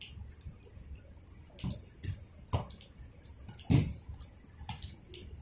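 Rain dripping in scattered, irregular drops, with a few louder thuds in the middle, the loudest a little under four seconds in.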